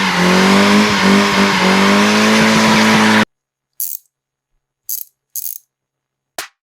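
Honda Civic's four-cylinder engine held at high revs in a burnout, with tyres squealing, for about three seconds before it cuts off abruptly. Then come four short, hissy swishes.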